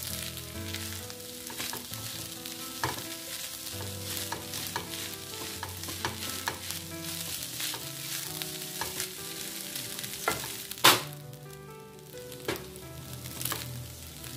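Egg-coated rice sizzling as it is stir-fried in a nonstick pan, with a spatula scraping and knocking against the pan throughout. One sharp knock about eleven seconds in is the loudest.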